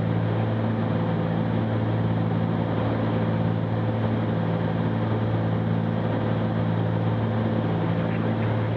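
Steady drone of a Cessna 310Q's twin piston engines and propellers in the cabin, a constant hum with no change in power.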